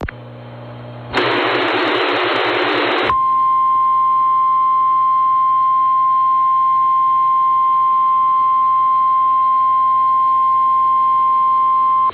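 A harsh burst of static-like noise for about two seconds, then the Emergency Alert System attention tone: one steady tone near 1 kHz held for about nine seconds, heard over AM radio.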